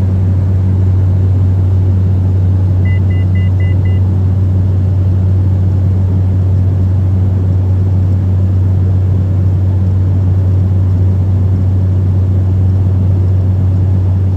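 Steady low drone of an airliner's cabin in cruise flight, engine and airflow noise heard from inside the plane. About three seconds in, five quick short beeps sound over about a second.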